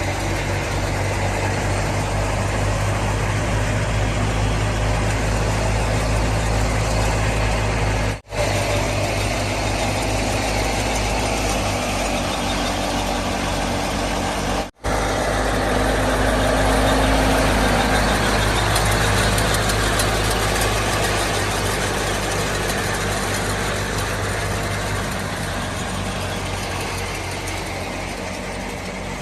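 Fiat 480 tractor's diesel engine running steadily, with a wide, even rush of machinery noise over its hum. The sound drops out for an instant twice, about eight and fifteen seconds in.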